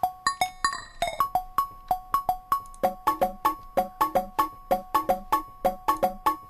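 Electronic music: short plucked synthesizer notes repeating in a steady pattern, about four a second, with a lower line of notes joining about three seconds in.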